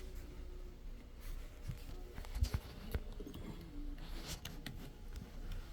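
Faint scattered clicks and scrapes of a small tool working at the wireless card bracket inside an opened MacBook Air, with a soft knock about two and a half seconds in.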